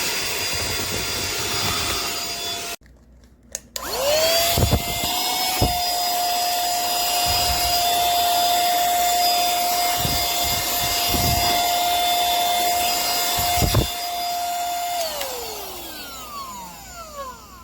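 Muchy cordless handheld car vacuum running with a steady high whine, switched off about three seconds in, then switched back on and spinning up to speed a second later. It runs steadily with a few knocks of handling, then is switched off near the end and winds down with a falling pitch.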